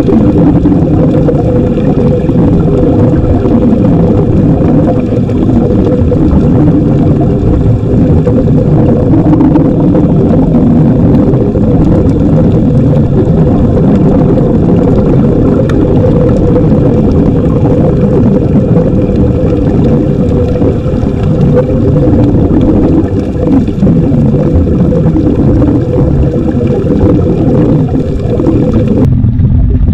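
Boat engine running at a steady drone under a loud low rumble, with a held tone through it. Just before the end it cuts abruptly to a duller rumble.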